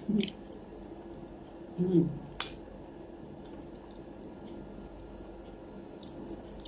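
A few light clinks of a fork and spoon against a plate, one sharper click about two and a half seconds in, with short murmured voice sounds from the eater just after the start and about two seconds in.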